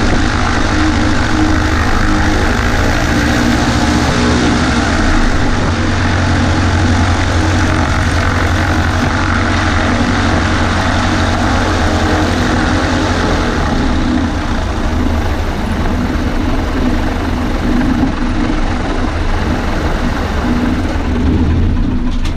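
Cessna 140A's air-cooled flat-four piston engine and propeller running steadily with a loud, even drone.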